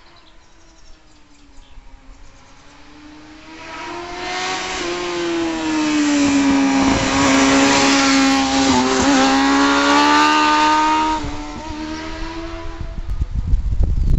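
A 1994 Honda CBR600F2 sportbike's inline-four engine, fitted with a Yoshimura RS3 exhaust, approaches at a steady high-revving pitch. It passes close by about eight seconds in and fades away as it rides off. A burst of low rumbling comes near the end.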